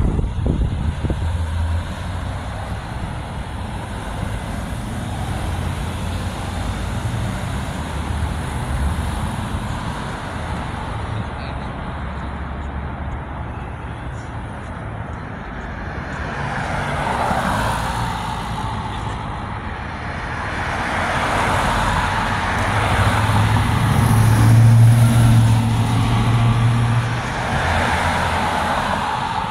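Road traffic at an intersection: a steady low rumble at first, then, once the light turns green, cars and a delivery truck pulling away and passing one after another, each a swell of engine and tyre noise. The loudest pass comes a few seconds before the end, with a low, steady engine drone from the truck.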